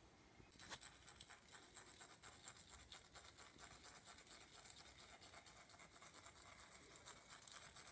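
Faint quick ticking and scratching of a small sieve being tapped to dust powdered sugar over a cake.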